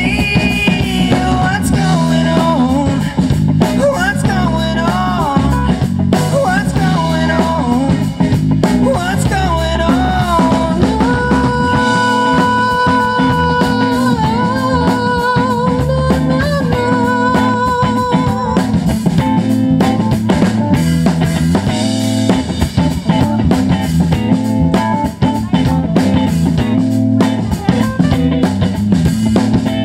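Live rock band playing a song: drum kit, bass and electric guitar, with a singer's voice winding through a melody and holding long, wavering notes partway through.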